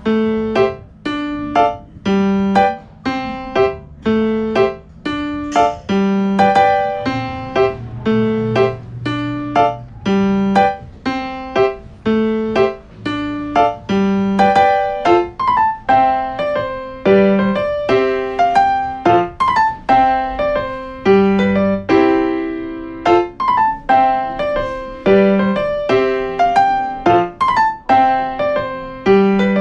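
Background music: a piano-like keyboard playing a steady, repeating pattern of notes over a regular bass line.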